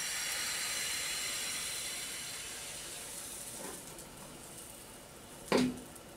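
Thin pancake batter with dill sizzling in a hot, dry frying pan, the hiss slowly dying down. One short, sharp knock about five and a half seconds in.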